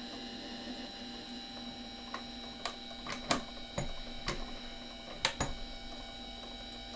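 Mini lathe running in reverse: a steady motor and gear-train whine, with several sharp clicks between about two and five and a half seconds in.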